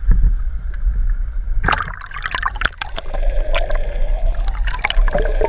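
Water splashing and gurgling as a GoPro camera is dipped under the sea surface about a second and a half in, then many short clicks and bubbling sounds heard underwater through the camera housing.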